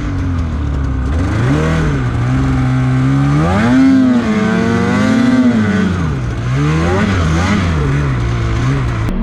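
Snowmobile engine revving hard, its pitch climbing and dropping several times as the throttle is worked on and off.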